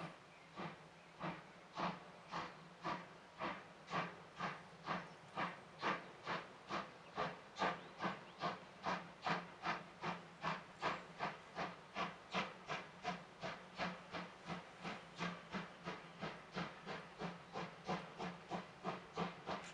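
DR class 52 two-cylinder 2-10-0 steam locomotive working hard with a loaded gravel train, its exhaust chuffing in an even beat. The beat quickens from under two a second to nearly three as the train gathers speed.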